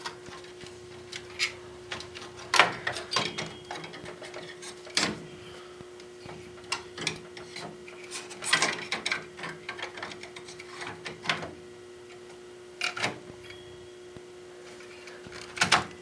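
Hands pushing a Pentium III Slot 1 processor cartridge into its motherboard slot inside a PC case: irregular plastic clicks, knocks and scrapes, some in quick clusters, over a steady low hum.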